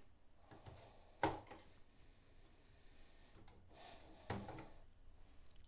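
Two short plastic clicks, the first about a second in and louder, the second near four seconds: the retaining latches of a motherboard memory slot being pushed open to release a PC100 SDRAM module.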